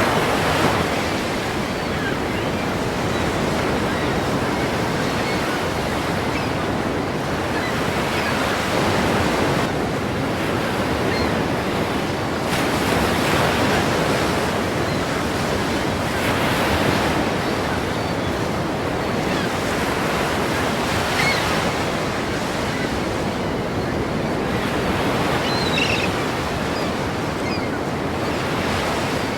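Ocean surf breaking against a pier: a continuous wash of water that swells every few seconds as each wave crashes.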